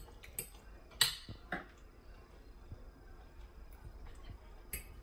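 Knife and fork clinking and scraping on a ceramic plate while cutting into a piece of chicken: a few sharp clinks, the loudest about a second in.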